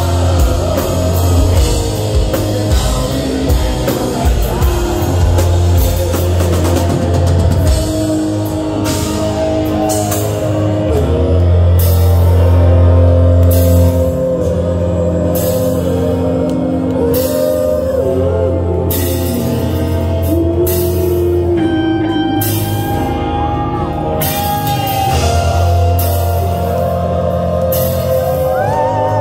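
Live rock band playing loudly through a club PA, heard from the crowd: electric guitars, bass, drums and sung vocals.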